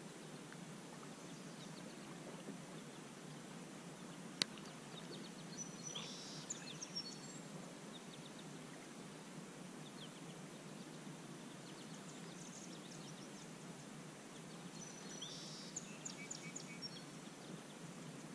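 Faint riverside outdoor ambience: a steady low background noise with small birds chirping in two short bouts, about six seconds in and again near the end. One sharp click about four seconds in.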